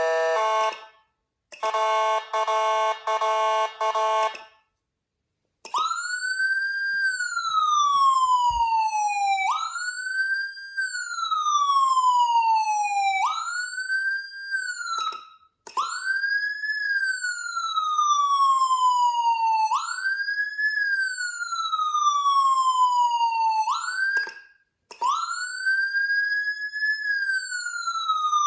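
Whelen CenCom Sapphire electronic siren. It opens with a few seconds of stepped, chime-like electronic notes, falls silent for about a second, then runs a wailing tone that shoots up quickly in pitch and slides slowly back down, repeating about every four seconds with a couple of brief cut-outs.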